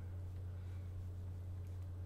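Steady low hum over quiet room tone.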